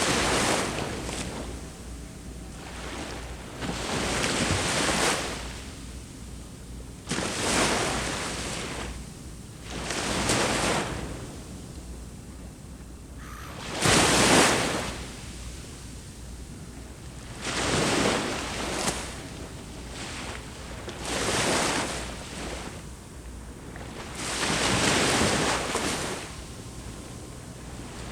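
Sea waves breaking and washing up the shore, one every three to four seconds, each a rush of surf that swells and fades, over a steady low background of the sea.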